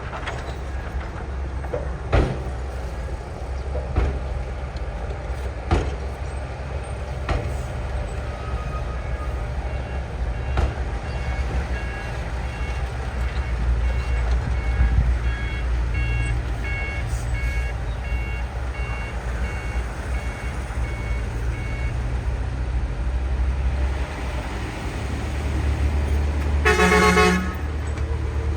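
Diesel engines of heavy earthmoving machines (bulldozers and excavators) running with a steady low rumble, with several sharp metallic knocks in the first ten seconds. A repeating beep sounds through the middle, and near the end a vehicle horn gives one blast about a second long, the loudest sound.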